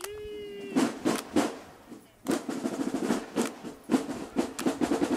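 Marching band drumline playing a cadence. A short held tone sounds first, then three sharp drum hits and a brief pause, and about two seconds in the snare and bass drums come in together with rapid rolls and accented strokes.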